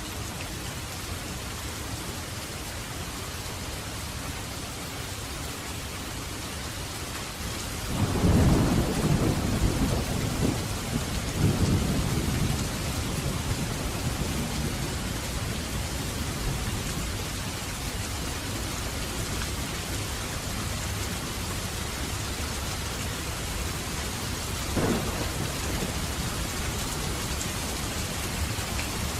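Steady rain falling, with a loud roll of thunder rumbling for several seconds about a quarter of the way in and a shorter, sharper thunderclap near the end.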